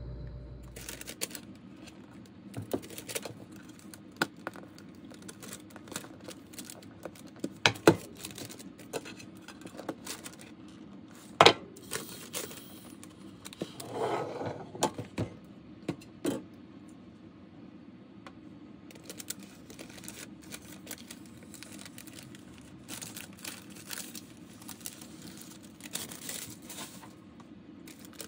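Parchment baking paper crinkling and rustling as it is handled and peeled back from a baked cake, with scattered sharp clicks and taps. The loudest tap comes a little before halfway, and a longer rustle follows just after, all over a steady low hum.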